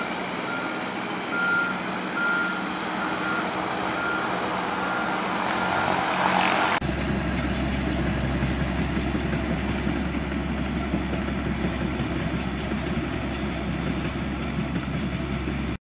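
Heavy equipment running with a backup alarm beeping about once a second. About seven seconds in the sound changes abruptly to a Case tracked excavator's diesel engine running with a steady low drone as the machine travels.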